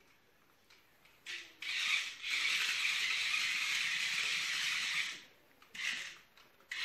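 Small battery-powered remote-control toy car driving on a hard floor, its motor and gears whirring with a rattle. It runs for about three and a half seconds from a little under two seconds in, with a brief spurt just before and another near the end.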